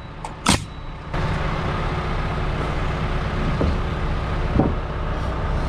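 A pneumatic framing nailer fires once about half a second in, driving a nail into a wooden fascia board. From about a second in, a steady engine drone runs underneath, with a couple of faint knocks.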